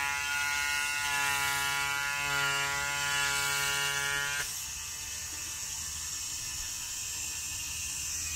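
ERC TimSav DIY CNC foamboard cutter at work: its stepper motors whine in steady tones as the gantry carries the needle along the cut, shifting pitch about two seconds in and stopping abruptly about four and a half seconds in. Under it the spun-up needle cutter keeps a high, hissy buzz going.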